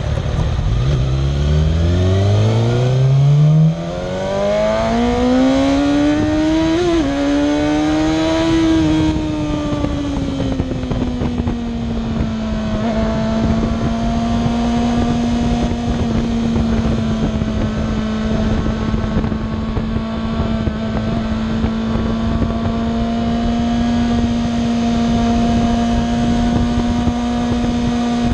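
Kawasaki ZX-6R inline-four engine accelerating hard: the revs climb steeply, drop at a gear shift about four seconds in, climb again to a peak around eight seconds with a brief dip near seven, then ease off and hold steady at highway cruising speed under a constant rush of wind.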